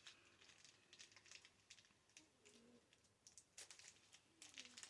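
Near silence with faint, scattered clicks and light rustling from hands handling a mail package and its wrapping.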